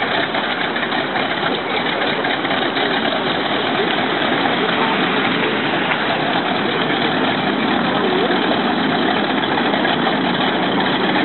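Pratt & Whitney R-1340 Wasp nine-cylinder radial engine of a Harvard Mark IIB running steadily at idle just after start-up.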